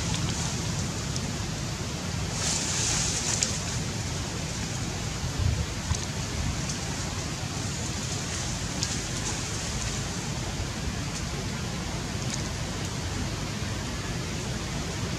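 Steady background hiss with a few faint, brief clicks.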